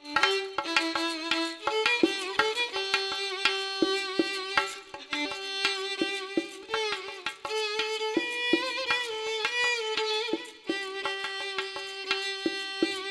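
Violin playing an ornamented Uzbek maqom melody, with sliding, bending notes, accompanied by a doira frame drum beating a steady rhythm.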